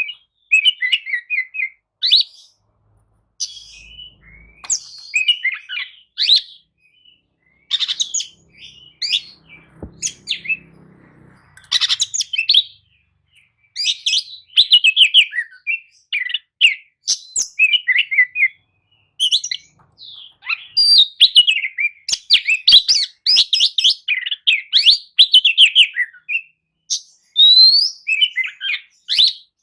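Oriental magpie-robin (kacer) singing a varied song of rapid whistles, chirps and trills, delivered in phrases with short pauses between them.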